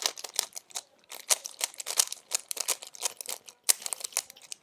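A Rubik's Cube's plastic layers turned rapidly by hand in a speed solve: a fast, irregular run of sharp clicks and clacks, several a second, that stops near the end.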